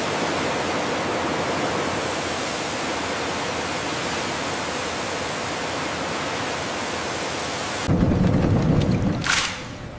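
Steady rushing hiss of water. About eight seconds in it gives way to a louder low rumble lasting over a second, ending in a sharp click.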